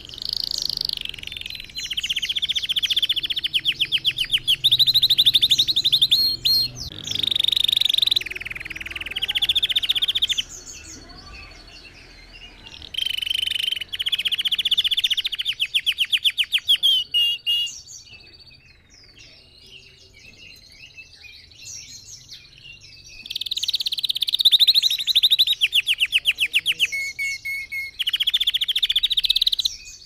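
Red factor canary singing long phrases of fast trills and rapidly repeated high notes. The song comes in long stretches, with a lull of a few seconds a little past the middle.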